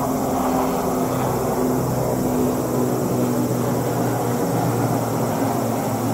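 JR West commuter electric train running slowly into a station: a steady mechanical hum with a low drone under it and a constant rushing noise.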